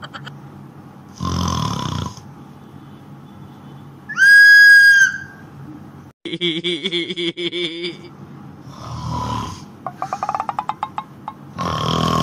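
A man's exaggerated fake snoring: rasping snore breaths and fast, rattling snorts. About four seconds in comes one shrill blast of a loud whistle, lasting about a second and louder than everything else.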